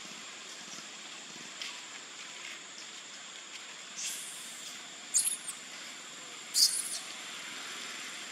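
A few short, shrill, high-pitched squeaks from macaques, the loudest about five and six and a half seconds in, over a steady hiss.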